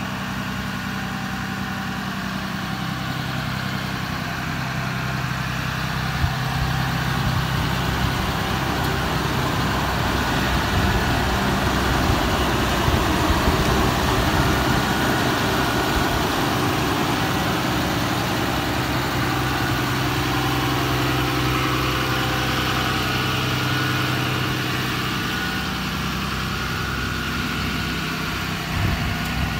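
2012 Ram 5500's 6.7-litre Cummins straight-six turbo-diesel idling steadily, a little louder in the middle stretch as the microphone passes the front of the truck.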